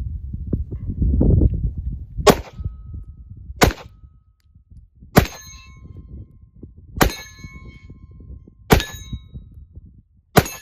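Six single shots from a Glock 19 Gen 5 9mm pistol, spaced about a second and a half to two seconds apart, most followed by the ringing of a struck steel target. A low rumble fills the first two seconds, before the first shot.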